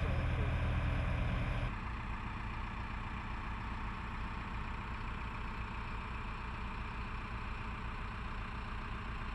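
Mobile crane's diesel engine running steadily during a heavy lift. About two seconds in the sound cuts abruptly to a quieter, steady engine drone with an even low pulse.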